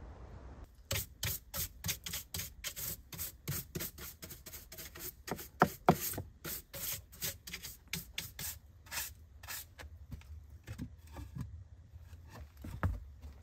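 Small hand brush sweeping a rough wooden plank bench, its bristles scraping the wood in quick repeated strokes, about three a second. A couple of louder knocks come among the strokes.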